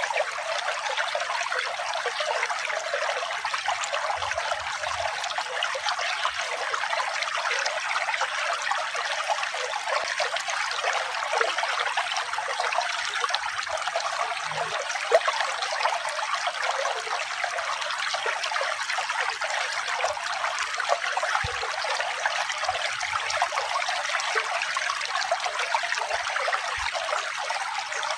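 Running water trickling steadily, an even splashing rush with no music.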